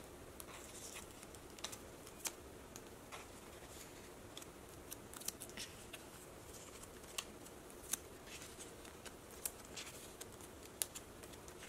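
Photocards being slid into the plastic pocket pages of a ring binder: scattered light clicks and soft rustling swishes of card against plastic sleeve.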